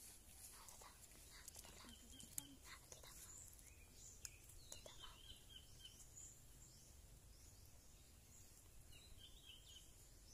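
Faint outdoor ambience of small birds chirping in short, repeated calls, with a few soft clicks in the first few seconds and a steady faint high hiss.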